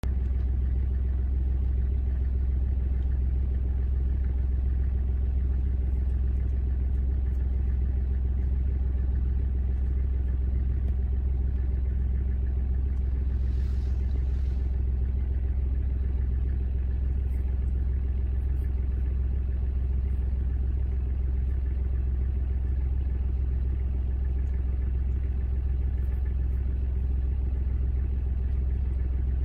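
Vehicle engine idling steadily: an even, low rumble with a constant hum.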